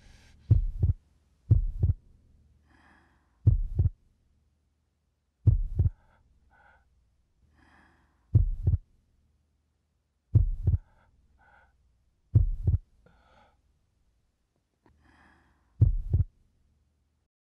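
Heartbeat-like sound effect: pairs of low thumps, about one pair a second at first, then spacing out to one every two seconds or more, with faint breath-like noise between the beats.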